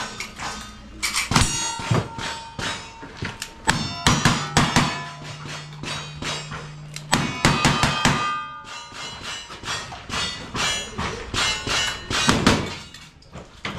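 A fast string of gunshots from cowboy action shooting, starting with a lever-action rifle, with steel targets ringing after the hits.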